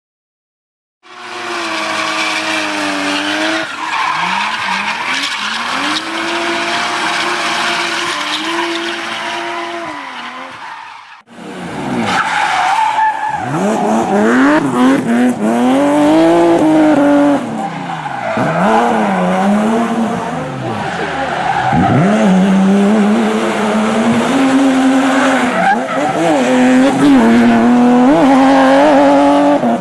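A car drifting: its engine revs up and down under tyres squealing and skidding. It starts about a second in, cuts out briefly near the middle, then comes back with wider, quicker swings in revs.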